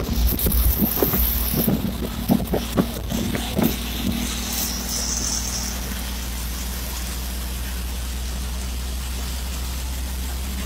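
Motorcycle engine running steadily with a low, even hum. Over the first four seconds there are many short knocks and thumps.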